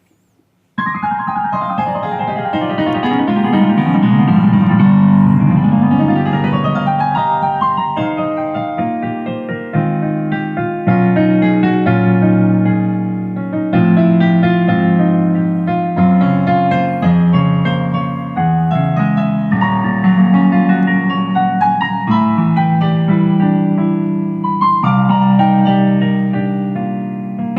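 Roland EM-55 keyboard playing piano music, with chords and quick runs of notes. It starts abruptly about a second in.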